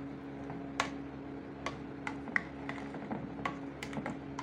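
Spoon stirring yogurt in a bowl, clicking against the bowl's sides in irregular light taps over a faint steady hum.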